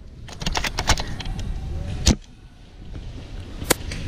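Sharp clicks and snaps of airsoft gunfire: a quick run of them in the first second, a louder crack about two seconds in and another near the end, over a low rumble on the microphone.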